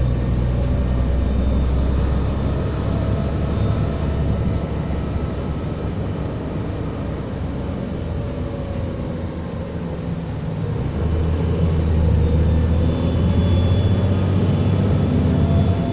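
Diesel engine of a Volvo ALX400 double-decker bus running under way. It eases back a couple of seconds in and picks up again under power about eleven seconds in, with a thin high whine that climbs as it does.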